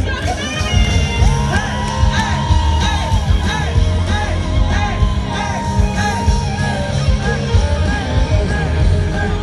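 A rock band playing live: a male voice singing over electric guitar and a steady beat, heard from among the audience.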